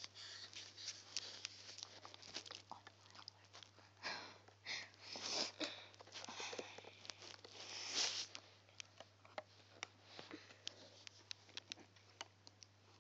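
Faint clicks and rustles of rubber bands being hooked and stretched over the pegs of a plastic loom with a plastic hook, with a few louder rustling bursts in the middle.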